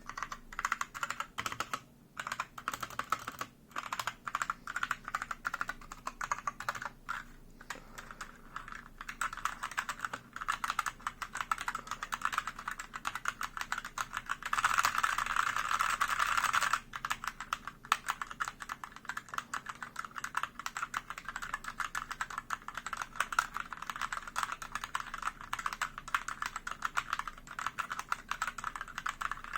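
Mechanical keyboard with Gateron Red linear switches being typed on steadily, a fast run of separate key clicks. About halfway through, a couple of seconds of much faster, denser key clatter.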